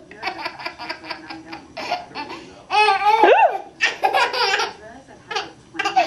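Baby laughing in repeated bursts of giggles, loudest about halfway through.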